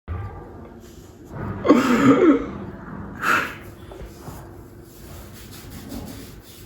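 A person's voice: a short wavering vocal sound about two seconds in, then a brief breathy burst like a cough or sneeze a second later.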